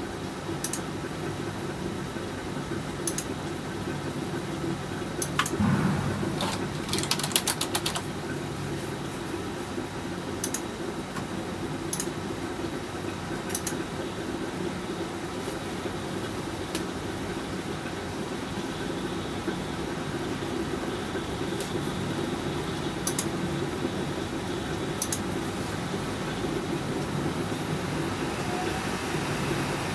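Scattered keyboard and mouse clicks, with a quick run of keystrokes about seven seconds in, over a steady low hum.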